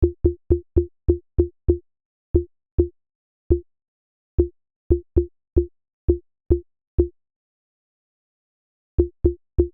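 Short synthesized blips from a Bitwig Poly Grid patch being built as a water-drop sound effect: each a click with a brief low tone that dies away almost at once. About twenty are triggered in quick irregular runs, with a pause of about two seconds near the end.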